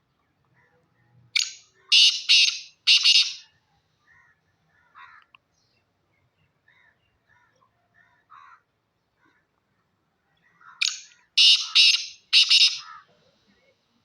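Black francolin calling: two harsh, grating phrases about nine seconds apart, each a short lead note followed by three loud notes in quick succession.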